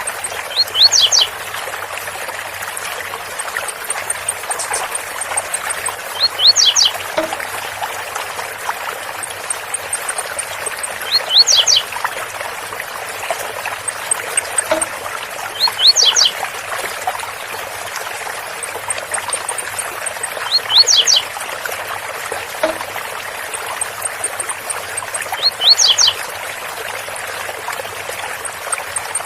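Blue-black grassquit (tiziu) singing the 'zel zel' song, a short high phrase repeated about every five seconds, six times, over the steady rush of a waterfall.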